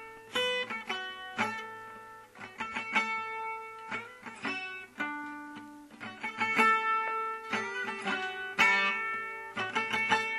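Background music played on a plucked guitar: a run of picked notes and chords, each struck and left to ring out.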